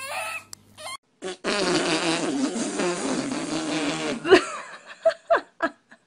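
A baby's brief whimper, then a long, wobbling fart sound lasting nearly three seconds, followed by a few short sliding voice sounds.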